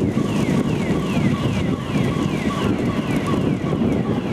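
An electronic alarm sounding a short falling chirp over and over, about twice a second, over heavy wind rumble on the microphone.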